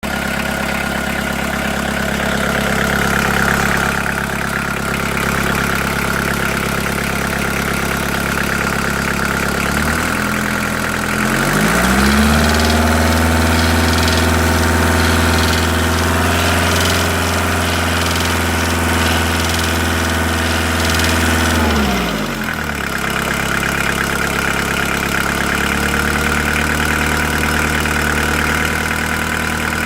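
VW T4 1.9 four-cylinder diesel engine idling, then revved up about ten seconds in, held at higher revs for about ten seconds and dropped back to idle. At the raised revs it has a clatter that the owner first took for hydraulic lifters and on teardown traced to a knocking piston pin.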